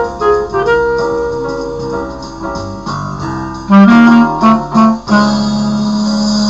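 Clarinet playing a slow melody over a chordal accompaniment. A few short low notes come about four seconds in, then a long held low note from about five seconds in.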